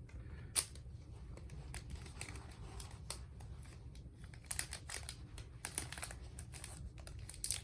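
Small plastic bag crinkling and rustling as a Zippo lighter is slipped into it, with scattered sharp crackles that come thickest past the middle.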